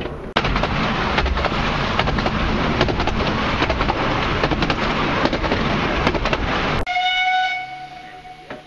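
Wheel and rail noise from inside a 15-inch gauge steam train carriage on the move, with the clickety-clack of rail joints. About seven seconds in, the running noise cuts off and the locomotive's whistle sounds one held note, which fades away.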